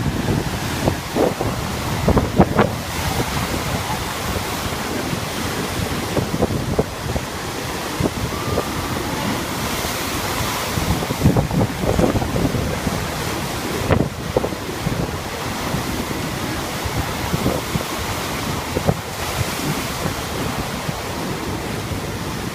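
Heavy storm surf, a sea still very rough after a typhoon, crashing and washing against rocky sea cliffs, with wind buffeting the microphone in uneven gusts.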